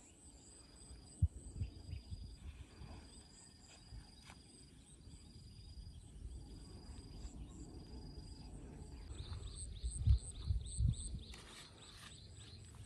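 Outdoor insects calling: a high, steady trill broken into repeated stretches with short gaps, with higher short chirps above it. A fast pulsing call joins about nine seconds in. A few low thumps stand out, one early and two close together near the end.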